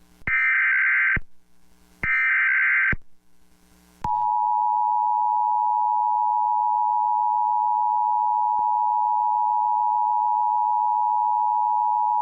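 Emergency Alert System warning signal: two short buzzing bursts of SAME digital header data, then the steady two-tone attention signal (853 and 960 Hz) held for about eight seconds from about four seconds in. These tones announce a severe thunderstorm warning.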